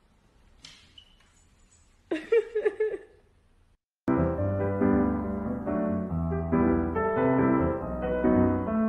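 Piano music starts abruptly about four seconds in and plays on steadily. Before it there is a quiet stretch with a short burst of vocal sound about two seconds in.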